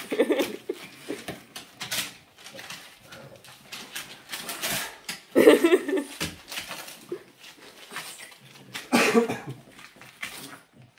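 A Boston terrier tearing and chewing newspaper: crackling paper rustling and ripping, with a few short low growls, louder at the start, about halfway through and near the end.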